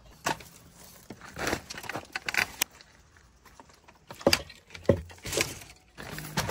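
Dry cane matting crackling and rattling as it is pulled and worked loose from a shelter's frame, in several separate sharp bursts. Music comes in near the end.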